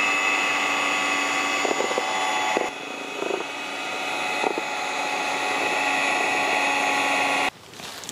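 Electric hand mixer running steadily with a constant motor whine, its beaters whipping cream in a bowl. The sound drops a little about two and a half seconds in and cuts off suddenly near the end.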